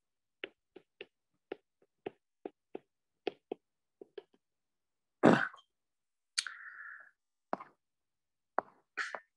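A stylus tapping and clicking on a tablet's glass screen while handwriting: a run of sharp, irregular clicks, about two or three a second. A louder short noise comes a little after five seconds in, then a brief hiss and a few more clicks.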